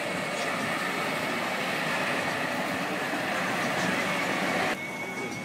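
Steady street noise, such as traffic and the sound of a standing crowd. It drops abruptly near the end, leaving a faint steady high tone.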